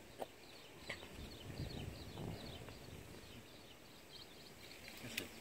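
Quiet outdoor background with a small bird chirping faintly in a quick series, about four short high chirps a second, that stops about three seconds in; a couple of soft clicks.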